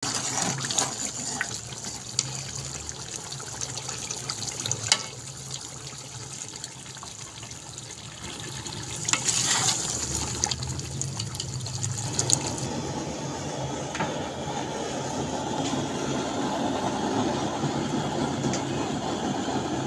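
Chicken-and-potato curry bubbling in an aluminium pot, with scattered pops and clicks. About twelve seconds in, the sound changes to a steady low rushing.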